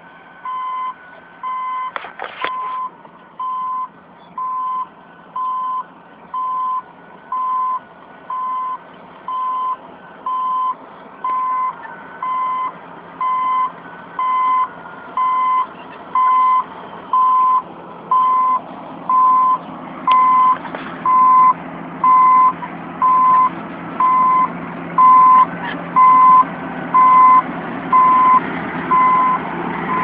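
Caterpillar D8N bulldozer's backup alarm beeping steadily, about once a second, over its diesel engine running. The beeps and the engine and track noise grow louder as the machine comes closer.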